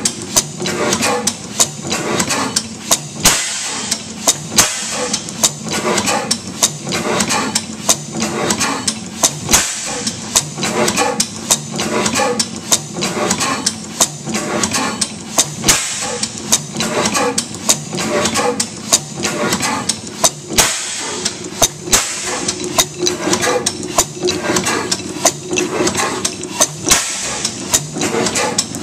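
15 HP St. Mary's sideshaft hit-and-miss gas engine, with a drop-cam igniter and mechanical valves, running steadily, its low hum overlaid by rapid, repeated mechanical clicks and knocks.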